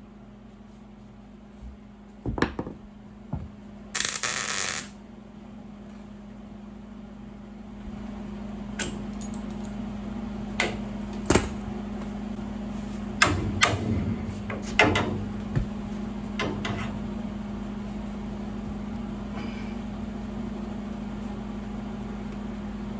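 Workshop metalwork: clanks and clicks of steel parts being handled over a steady hum, with one short hissing burst about four seconds in.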